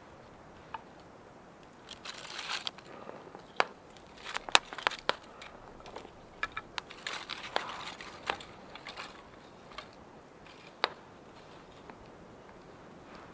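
Split wooden kindling sticks knocking and clicking against one another as they are laid by hand over a pile of wood shavings, with rustling between the sharp knocks.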